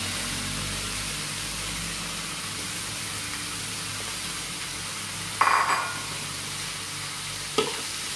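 Shredded fish and freshly added sliced bitter melon sizzling steadily in a hot metal wok. A metal spatula scrapes the pan loudly about five seconds in and clinks against it near the end.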